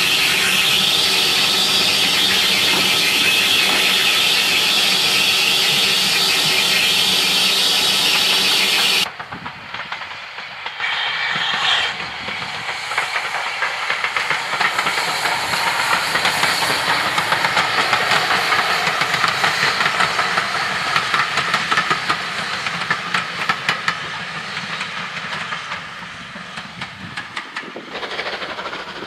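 Loud, steady hiss of steam beside a passing train. About nine seconds in it cuts to a steam locomotive-hauled train running by, its wheels clicking rhythmically over the rail joints, the sound swelling and then fading away near the end.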